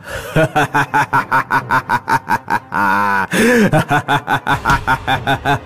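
A witch's cackling laughter: a fast run of short 'ha' pulses, about five a second, broken about three and a half seconds in by a long cry that rises and falls in pitch.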